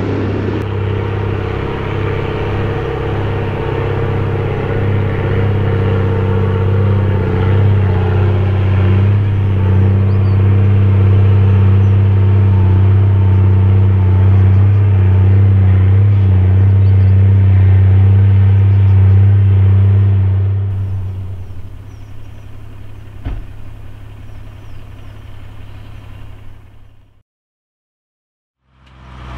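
Mercedes-Benz Unimog U1700L's straight-six diesel engine droning steadily under load as the truck climbs a steep dirt hill, heard from inside the cab. At about twenty seconds the drone fades away to a quieter rumble, and near the end the sound cuts out for a moment.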